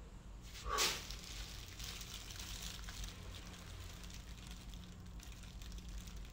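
A short sharp scrape about a second in, then a small flame crackling and ticking faintly over a low steady hum.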